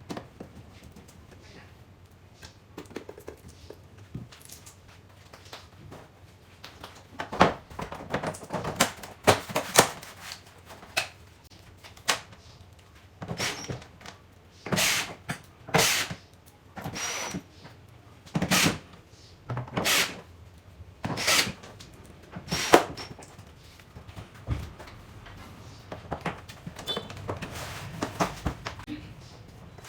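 Tool work: a run of short noisy bursts, each about half a second to a second long and one to two seconds apart, with knocks and clatter in between.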